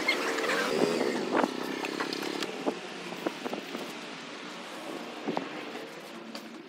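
City street traffic with motorbikes and scooters, a steady rumble that gradually fades, with scattered sharp clicks and knocks.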